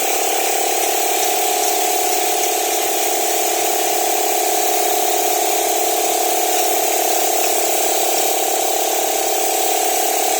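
Steady machinery hum with a fast, even flutter, from running equipment.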